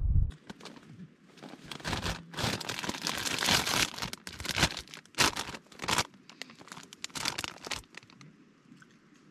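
A plastic snack bag of cheese puffs crinkling and rustling as a hand rummages in it, in a quick string of crackly rustles that are loudest in the middle and die away after about eight seconds. Wind buffets the microphone for a moment at the very start.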